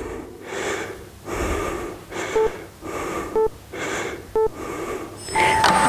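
A woman breathing hard through a wall-sit hold, in repeated heavy breaths. Countdown timer beeps sound once a second, three short ones, then a longer beep near the end that marks the end of the interval.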